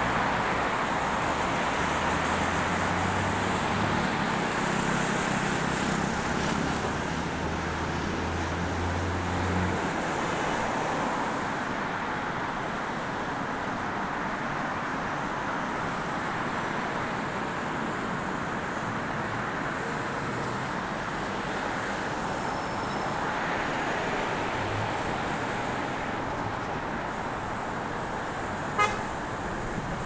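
City road traffic heard from a bicycle: a steady wash of passing cars and tyre noise, with a vehicle's low engine hum during the first ten seconds or so. Two brief sharp clicks, one about halfway through and one near the end.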